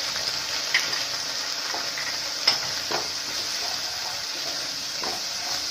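Black cumin, mustard paste, green chilli paste and freshly added turmeric sizzling in hot oil in a nonstick wok, with a steady hiss. A wooden spatula stirs them and knocks against the pan a few times, loudest about two and a half seconds in.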